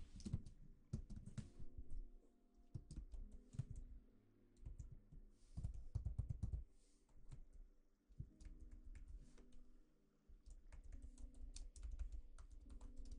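Irregular close-miked clicks and taps with low thumps beneath them: ASMR trigger sounds of an object being handled right at the microphone.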